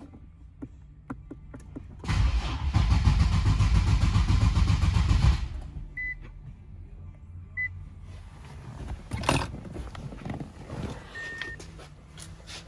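Starter cranking the 2018 Infiniti Q60 Red Sport 400's twin-turbo V6 for about three seconds, then stopping without the engine catching: a no-start. Afterwards two short electronic beeps, a sharp knock and another short beep.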